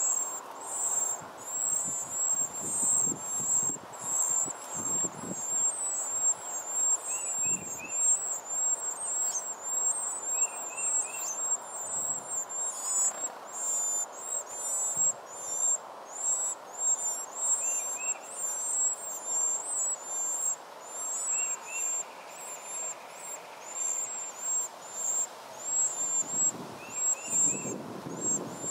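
Wren nestlings begging: a continuous, rapid stream of very high-pitched thin calls from the hungry chicks. Now and then there is a short three-note chirp at a lower pitch.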